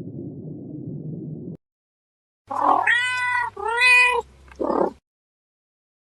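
A low rumble cuts off about a second and a half in. After a short gap, a domestic cat meows twice in drawn-out calls, then gives one short third call.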